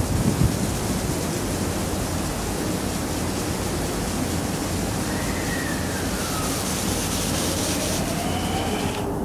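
521-series electric train standing at the platform with a steady hum of its onboard equipment. A whine glides downward about five seconds in, and near the end rising whines begin as the traction motors start the train pulling away.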